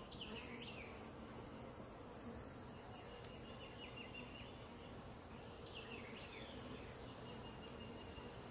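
Honeybees buzzing over an open hive, a steady droning hum. A high, falling chirp of a bird call comes twice, near the start and about six seconds in.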